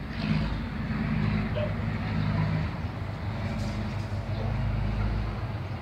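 A motor engine running steadily: a low hum that swells about a quarter second in and eases off near the end.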